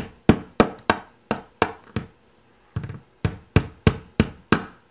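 Claw hammer repeatedly striking a metal ball stud mounted in a 3D-printed nylon RC car bulkhead, metal on metal, about three sharp blows a second with a short pause about two seconds in. The nylon part holds without breaking.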